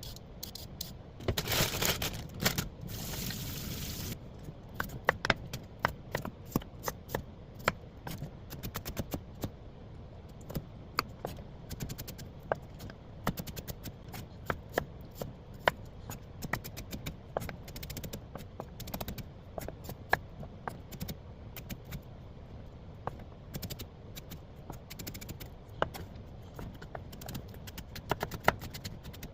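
Kitchen prep: irregular sharp clicks and knocks of utensils on a board or dish, after a brief burst of hissing noise about a second in.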